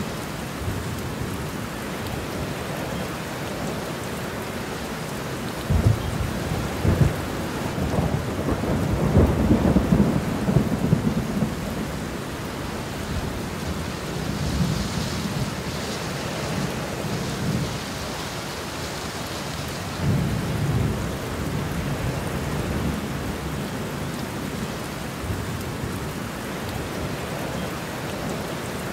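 Heavy rain pouring steadily, with thunder rumbling through it: sharp cracks about six seconds in, the loudest roll just after, and another rumble about two-thirds of the way through.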